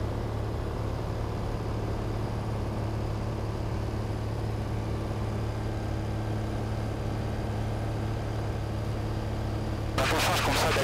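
Cessna 182's piston engine and propeller droning steadily, heard from inside the cabin as an even low hum. About ten seconds in, a louder hissing, crackling noise comes in over it.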